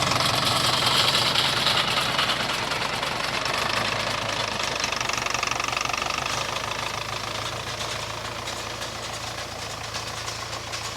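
Farm tractor engine running steadily, gradually growing fainter.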